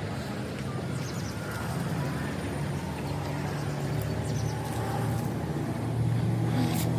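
A vehicle engine running with a steady low hum that grows a little louder near the end, and a few sharp clicks at the very end.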